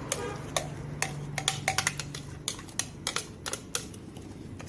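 Irregular light clicks and knocks of a kitchen utensil against a container, as the blended ginger, turmeric and kencur paste is tapped and scraped into the pot. Some knocks come in quick clusters with a short ring.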